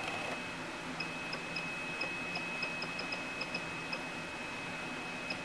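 Programmable pattern tacker's X-Y feed jogging under arrow-key control: a steady high whine with small ticks that come faster toward the end, over a faint low hum.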